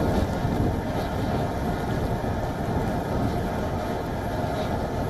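Steady low rumble of wind and engine noise, even in level throughout.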